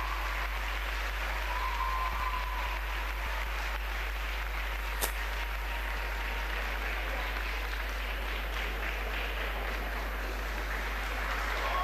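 Ice-rink audience applauding steadily at the end of a figure skating programme, with one sharp click about five seconds in.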